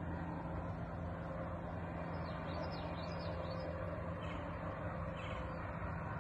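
Steady low background rumble with a constant hum, from an unseen source. About two and a half seconds in, a bird chirps several times in quick succession.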